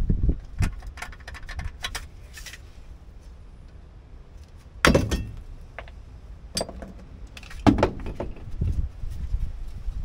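Light metallic clicks and clinks from hand work on a truck's steering column and ignition-switch mechanism. A quick run of them comes in the first two seconds, then three sharper knocks follow in the second half.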